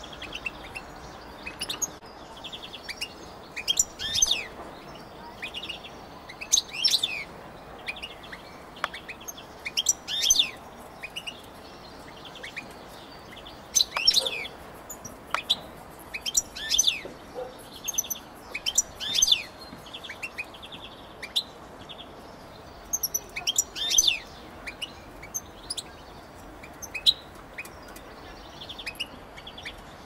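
European goldfinch singing: a long twittering song of buzzy trills broken every few seconds by sharp, high chirps.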